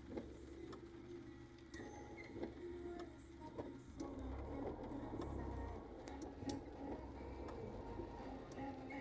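Car cabin noise in the rain: a low engine hum that swells for a couple of seconds midway, with scattered sharp taps of raindrops on the windshield and roof.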